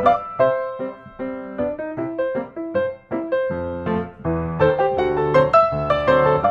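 Background piano music: a flowing melody of struck notes over a steady bass line.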